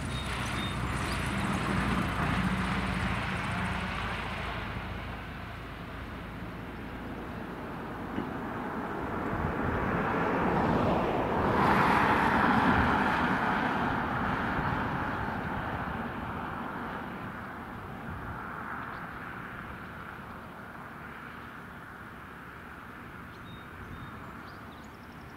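Cessna 172K Skyhawk's four-cylinder Lycoming piston engine and propeller running, growing louder to a peak about twelve seconds in, then fading away.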